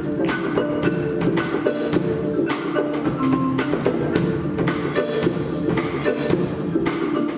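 Percussion ensemble playing mallet instruments and drums: a quick, steady rhythm of marimba notes over drum strikes.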